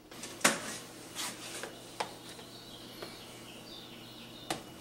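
Spatula knocking against a glazed ceramic bowl as whipped egg whites are scooped in and mixed into pancake batter. A handful of sharp clicks, the loudest about half a second in, over a faint high wavering tone.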